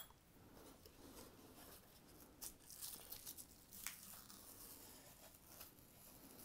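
Faint tearing with a few soft cracks, about two and a half and four seconds in, as an MDF routing template is pulled off its MDF copy and the masking tape bonded with super glue between them peels apart.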